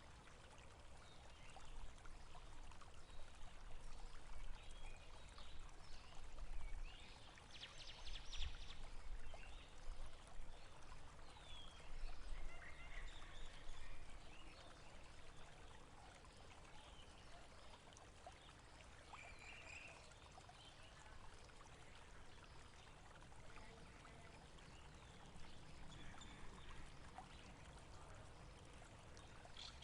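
Water in a stream flowing steadily, with a few short bird calls over it.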